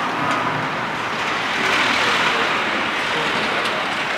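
Steady mechanical noise of workshop machinery running, swelling slightly about two seconds in.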